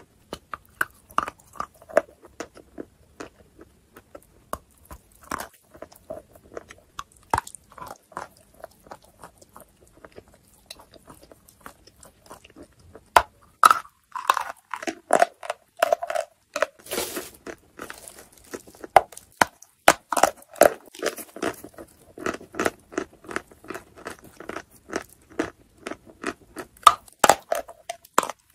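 Biting and chewing chalk: a steady run of crisp crunches. They thin out for a few seconds in the middle, then come faster and louder from about halfway.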